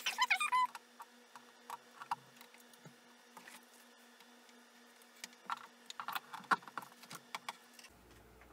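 Scattered light clicks and taps of cables and small plastic parts being handled, with a cluster of clicks about six seconds in, as a USB cable is found and plugged in. A short squeak opens it.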